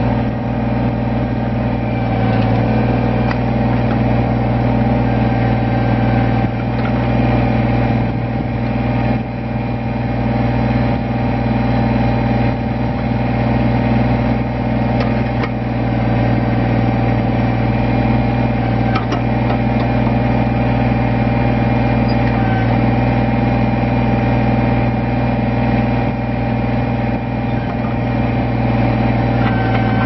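Kubota BX25D compact tractor's small three-cylinder diesel engine running steadily while the backhoe boom and bucket are swung from side to side, its level dipping and swelling slightly as the controls are worked. A few faint clicks come through now and then.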